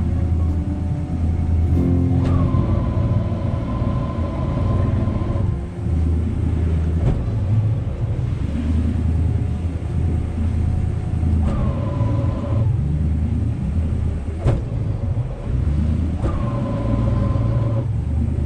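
Inboard engine of a wooden Lyman boat running at low speed while the boat manoeuvres among the slips, a steady deep rumble. A higher whine comes in three times, for a few seconds near the start and more briefly later, and a few sharp knocks sound over the engine.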